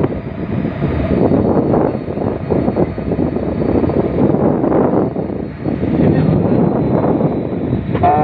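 Wind buffeting the microphone on a ship's open deck: a loud rushing that swells and dips, with no clear engine tone.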